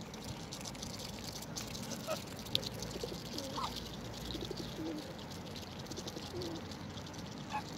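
Pigeons cooing softly, a few low wavering calls, with a couple of short higher bird calls and faint clicking.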